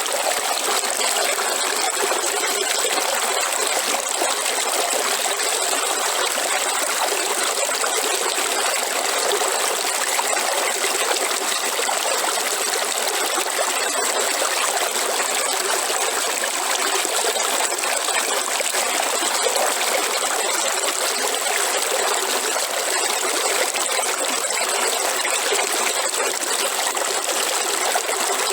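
A river flowing, a steady rush and trickle of water with no breaks.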